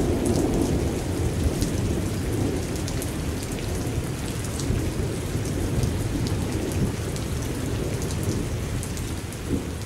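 Steady rain falling, a dense patter of drops over a continuous low rumble.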